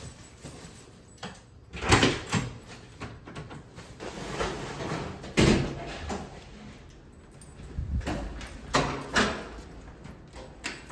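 Door-handling sounds: a string of irregular clunks and knocks from a door and its latch, the loudest about two seconds in and again about five and a half seconds in.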